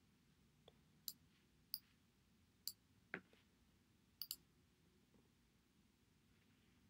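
Computer mouse clicking several times, a sharp, short click every half second to second, with a quick double click about four seconds in, against near silence.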